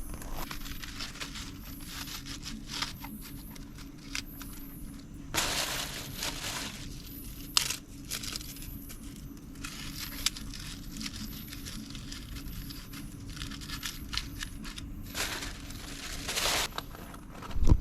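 Dry tinder and kindling crackling and crinkling: many small irregular snaps, with two longer rustling bursts about five and fifteen seconds in.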